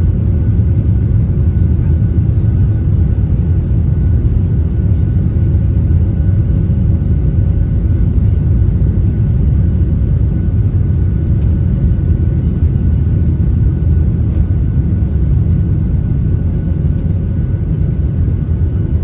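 Steady low rumble inside a Boeing 737 airliner cabin in flight, from engine and airflow noise, with a faint steady high whine over it.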